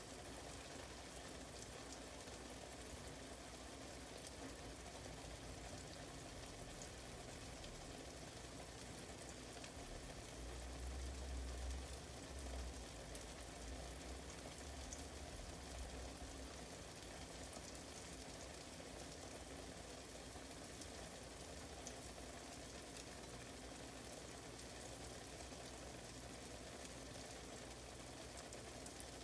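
Egg pancake with onion and bell pepper frying gently in a pan: a faint, steady sizzle with scattered tiny crackles. A low rumble comes in for a few seconds near the middle.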